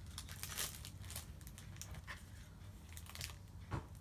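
Plastic wrapper of a Hostess Snoballs pack crinkling as it is handled, in several short crackles.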